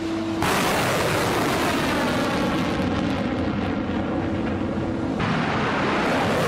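Ground-launched missile firing: a sudden loud blast about half a second in, then a steady rushing rocket-motor noise as the launch blast throws up dust around the launcher.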